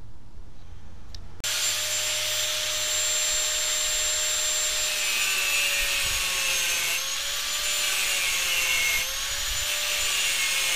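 Small angle grinder with a thin cut-off disc cutting through quarter-inch mild steel plate: a loud steady whine over a harsh cutting hiss, starting suddenly about a second and a half in. Its pitch sags slightly twice near the end as the disc bites in under load.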